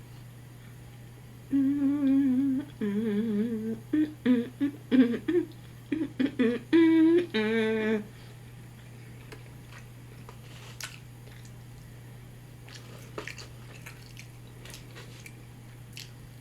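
A woman humming a tune with her mouth closed for about six seconds, in held, wavering notes that step up and down in pitch, then a few faint mouth clicks as she goes on eating.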